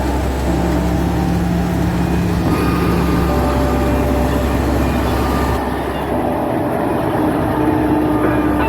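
Combine harvester running: a steady, loud engine and machinery noise with a constant low hum. The higher noise drops away about halfway through.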